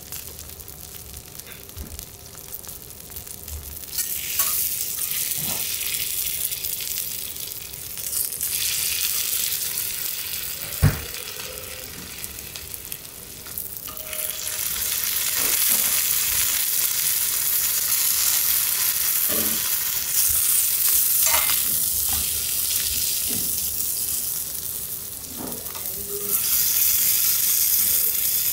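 Kuruma prawns sizzling on a teppanyaki iron griddle. The hissing swells and fades several times and is loudest from about fourteen seconds on, with occasional taps of metal spatulas and one sharp knock about eleven seconds in.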